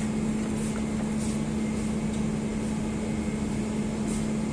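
Steady machine hum with one low, unchanging tone over an even hiss.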